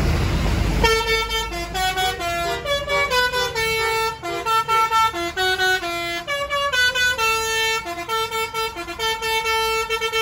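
Basuri telolet bus horn playing a quick melody of stepped, changing notes, starting about a second in after a second of loud low noise from the vehicle.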